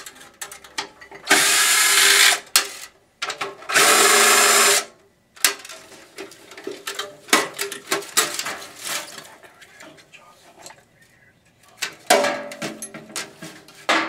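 Power drill running in two short bursts of about a second each, then light knocks and clatter of metal parts being handled.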